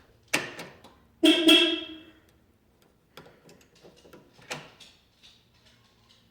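Clicks from a Porsche 986/996 door lock as the key is turned in the cylinder, with a short, loud beep from the car about a second in, then a few fainter ticks and one sharper click near the middle.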